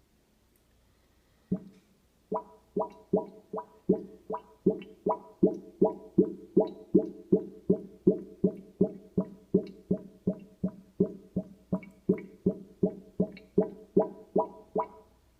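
Kitchen sink drain gurgling: a steady run of pitched glugs, about two a second, beginning about a second and a half in. The owner suspects the gurgling comes from a backed-up sewer.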